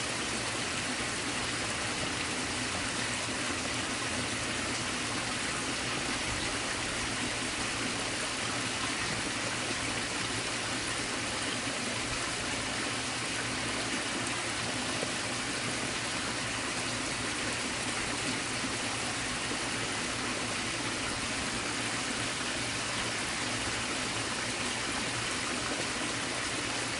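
A creek running: a steady, even rush of water that does not change.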